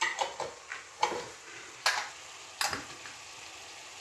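Kitchen utensils clinking and knocking against a pot and the counter, about six sharp clicks in the first three seconds, over faint sizzling of vegetables frying in the pot.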